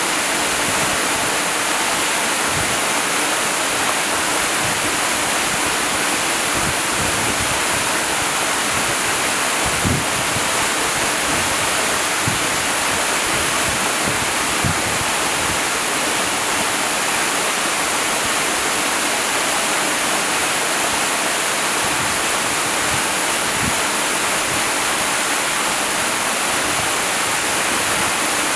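Waterfall: a steady, unbroken rush of falling water with a bright hiss, and a few brief low splashes.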